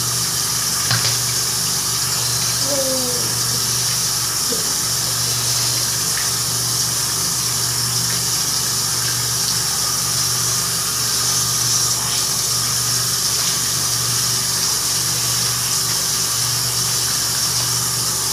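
Water running steadily from a tap into a bathroom sink.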